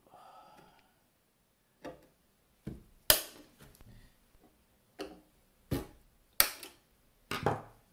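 Screwdriver clicking and clinking against the screws in the metal rear panel of an avionics transponder case as they are undone: about seven sharp clicks at uneven intervals, the loudest about three seconds in.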